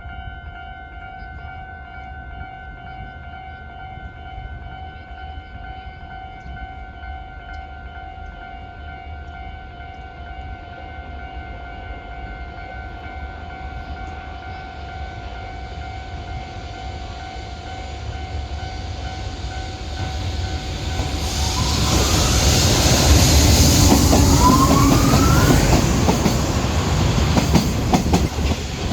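Level-crossing warning bell ringing steadily while a JR Freight EH500 electric locomotive and its container train approach. From about two-thirds of the way in, the train passes loudly, with a short rising whine, then the clack of wheels over the rail joints near the end.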